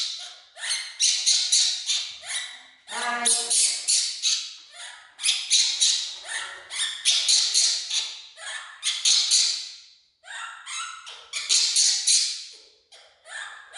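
Baby monkey crying out in a string of shrill calls, each about a second long, with short breaks between them.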